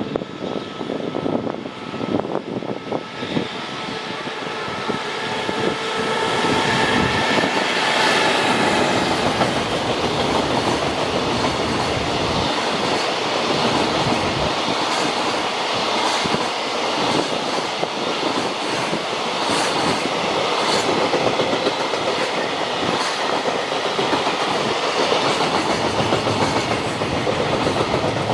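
A JR Freight EF210 electric locomotive and its train of freight wagons passing at speed. A whine comes from the locomotive for the first eight seconds or so, then the steady rumble of the wagons, with wheels clacking over the rail joints.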